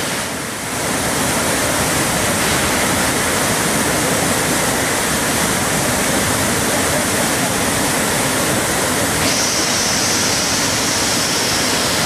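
Athirapally Falls in monsoon flood: a dense, steady rush of brown floodwater churning over the rocks. It dips briefly just under a second in, and the high hiss brightens abruptly about nine seconds in.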